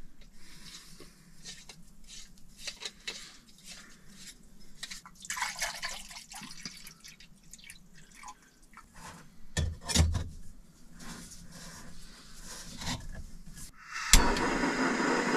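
Clicks and rattles of containers being handled, and water poured from a plastic bottle into a small pot, with a low thump about ten seconds in. Near the end a camping gas stove clicks alight and then burns with a steady hiss.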